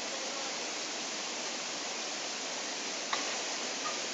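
Stream water rushing over rocks in small cascades, a steady even noise. A single sharp click about three seconds in.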